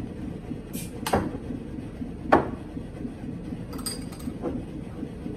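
Glass beer bottles knocking and clinking on a wooden table: scattered sharp clicks, the loudest a little over two seconds in, and a short ringing clink of glass about four seconds in.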